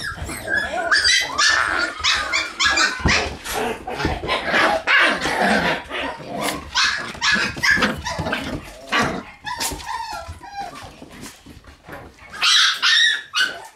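Shiba Inu puppies barking and yipping, a steady run of short high calls in quick succession, with a louder cluster near the end.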